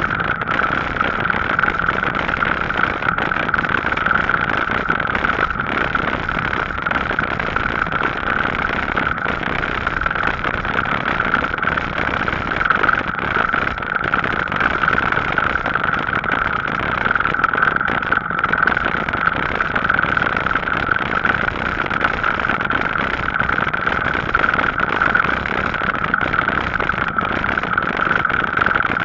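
E-bike riding steadily: continuous rolling and wind noise, with a constant high whine.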